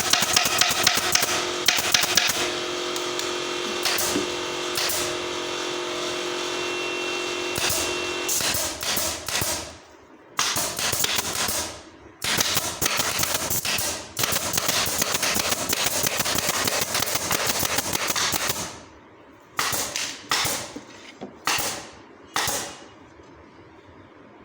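Rapid strings of sharp clicks from a pneumatic upholstery staple gun driving staples into a sofa frame, fired in runs of several seconds, with a few short bursts near the end. A steady hum sounds under the clicks for the first third.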